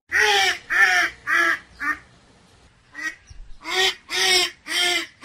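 Duck quacking: a run of four loud quacks, a short lull with a couple of soft calls, then another run of quacks.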